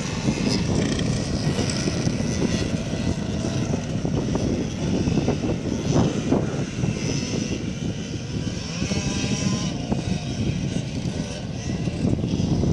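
Several small off-road motorcycles buzzing at a distance, a mixed engine drone whose pitch rises and falls as the riders work the throttle.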